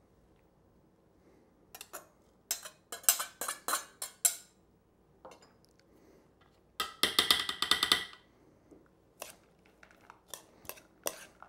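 Kitchen utensils clinking and tapping against a ceramic mixing bowl and a chef's knife knocking and scraping on a plastic cutting board as chopped vegetables are moved into the bowl. A run of sharp taps starts about two seconds in, a denser clatter comes about seven seconds in, and a few single clicks follow.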